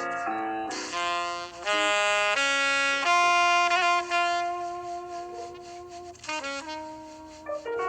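Instrumental break in a slow jazz ballad: a solo melody line of long held notes, one of them with vibrato about halfway through, with no singing.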